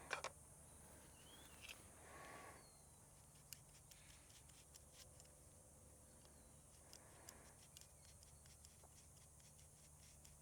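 Near silence with faint clicks and small handling noises as seeds and grow plugs are worked into a hydroponic seed pod; a sharp pair of clicks right at the start is the loudest.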